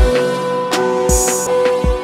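Background music with a beat: deep bass drum hits about every second, sharper percussion hits, and sustained held notes.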